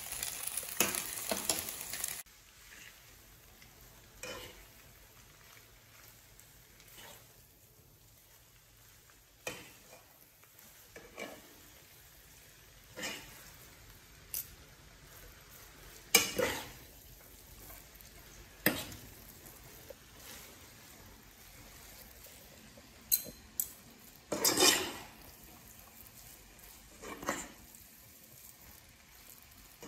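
Metal forks scraping and tapping against a frying pan as noodles are tossed and mixed, in separate short strokes every second or few, the loudest about two-thirds of the way through. A sizzling hiss fills the first two seconds and cuts off abruptly.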